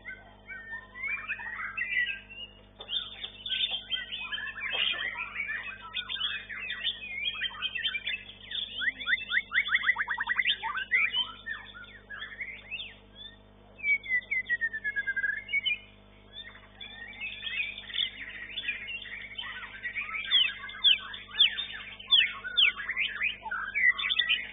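White-rumped shama (murai batu) singing: a varied run of whistles, chirps and trills in phrases with short pauses, including a rapid falling trill about nine seconds in and a long swooping whistle about fourteen seconds in.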